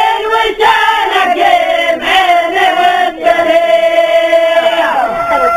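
A group of voices chanting a traditional Tunisian wedding song on long held notes, with one note held for about two seconds that then slides down near the end.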